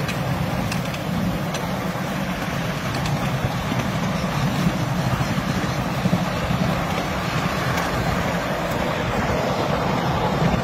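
Miniature 7.25-inch gauge train running along the track, its locomotive and wheels on the rails making a steady running noise with a few faint clicks.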